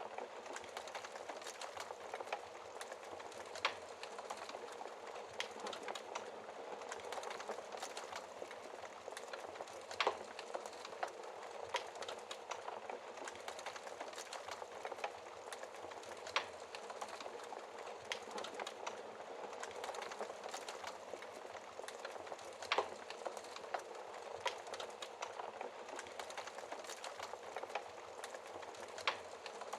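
Wood fire crackling behind a glass fireplace shield: a steady hissing burn with constant small ticks and a sharper pop every few seconds.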